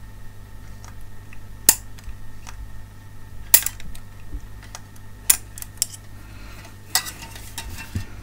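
Sharp metallic clinks and taps, about five spread through, as tools meet the steel case, heatsinks and board of an opened ATX computer power supply during desoldering. A rustle of handling comes near the end as the unit is turned over, over a steady low hum.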